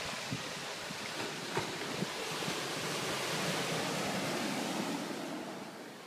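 Small sea waves washing onto a pebble beach in a steady rush of surf.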